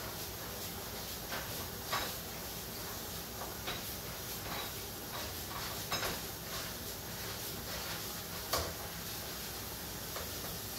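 Kitchen work at a counter: a few short knocks and clinks of bowls or utensils being handled, several seconds apart, the loudest one near the end, over a steady background hiss.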